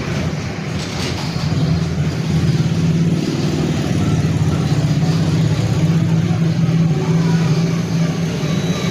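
Steady low mechanical drone, like an engine running, that grows a little louder about two seconds in.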